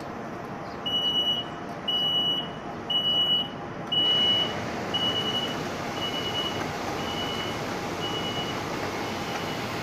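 Door-closing warning beeper on a Hyundai Rotem HRCS2 electric train: a high beep about once a second, nine in all, the first four louder and longer than the rest, over the steady hum of the standing train.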